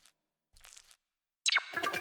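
A short crunching crackle, then, about a second and a half in, a quick falling swoosh that leads into a cartoon music cue with rapid repeated notes.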